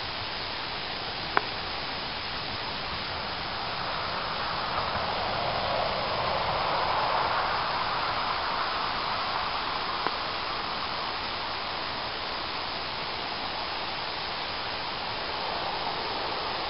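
A steady hiss of background noise that swells for several seconds in the middle, with one sharp click about a second and a half in.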